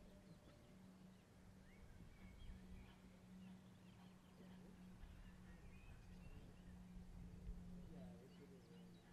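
Near silence: faint bird chirps over a steady low hum and a faint rumble.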